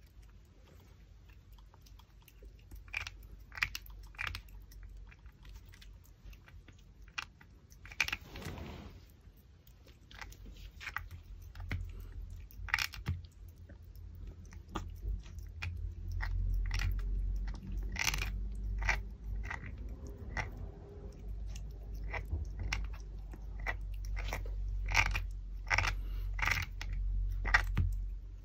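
Pomeranian puppy chewing and gnawing a raw pork backbone: irregular crunches and clicks of teeth on bone, coming thicker in the second half, over a low rumble.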